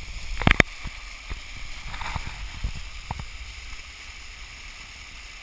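Small mountain-stream waterfall tumbling over rocks: a steady rush of falling water. Two sharp knocks come about half a second in, and a few fainter taps follow over the next few seconds.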